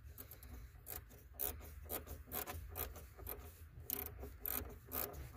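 Wrench working the nut on a car battery terminal bolt: a run of short rasping strokes, about two a second.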